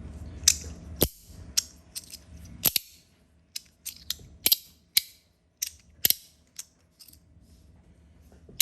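A Compoform magnetic fidget slider being slid and snapped back and forth: a string of sharp, irregular clicks and clacks as the pieces catch and snap together, with a scratchy sliding sound between them.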